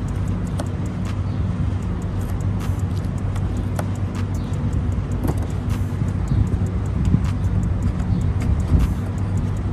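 A motor running steadily with a low, even hum, over faint clicks and crinkles of hands working duct tape onto a plastic bottle.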